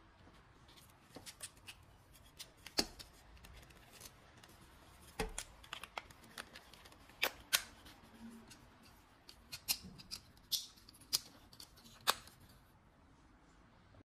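Plastic selfie stick tripod being folded up by hand: an irregular string of sharp clicks and snaps as the tripod legs close, the telescoping pole slides in and the phone clamp folds down.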